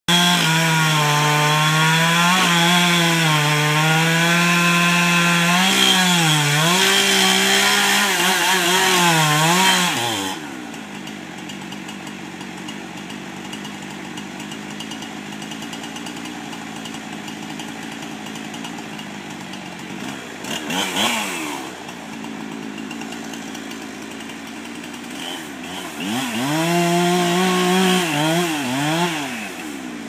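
Two-stroke chainsaw cutting at the base of a tree trunk for about ten seconds, its pitch wavering under load, then dropping to idle. There is a brief rev about twenty seconds in, then a few more seconds of cutting near the end.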